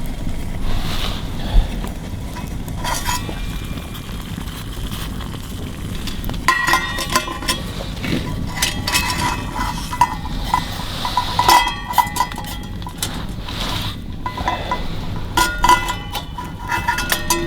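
Irregular light metallic clinks and knocks over a steady low rumble, busiest in two stretches a few seconds apart.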